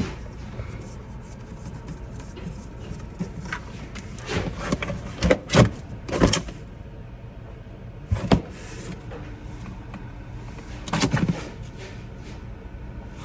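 Steady low hum of a plugged-in refrigerator running, with several sharp knocks and clunks of the unit being handled, loudest about five to six seconds in and again near eight and eleven seconds.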